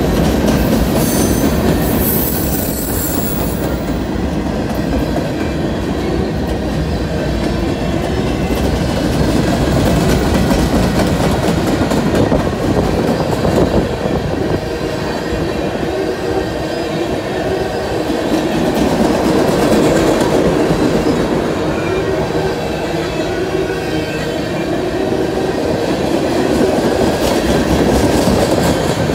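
Freight train cars rolling past close by: a steady rumble of steel wheels on rail with a clattering clickety-clack, and a brief high wheel squeal a second or two in.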